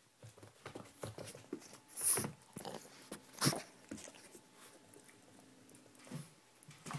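Boston terrier moving about and making small noises, with scattered short knocks and scuffs; the loudest knock comes about three and a half seconds in.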